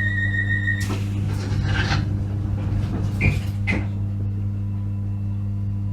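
A train's passenger doors closing. A steady high warning tone cuts off about a second in, the doors slide across, and they shut with two knocks a little after three seconds in, over the steady hum of the train's equipment.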